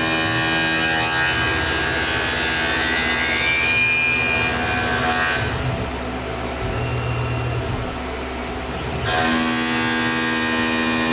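Tormach CNC mill machining a metal part: the spindle and cutter run steadily, with a whine that rises in pitch a couple of seconds in, and the cutting sound changes for a few seconds in the middle before returning.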